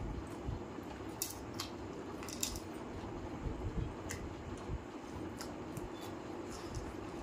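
Close-up eating sounds: wet chewing and lip smacks as a man eats chicken curry, roti and raw onion with his fingers, with scattered sharp clicks over a steady low hum.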